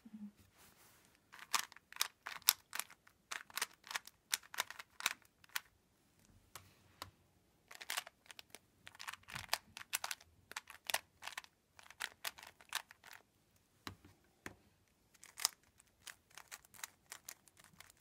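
3x3 speed cubes being turned quickly by hand: irregular runs of plastic clicks and clacks as the layers turn, with short pauses between runs.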